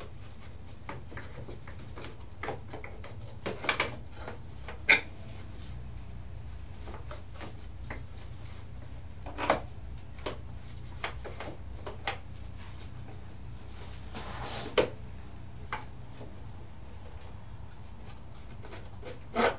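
Hands working parts loose from a dirt bike's frame during a teardown: irregular clicks, knocks and a short scrape of plastic and metal being handled, several louder knocks about 5, 9.5 and 15 seconds in, over a steady low hum.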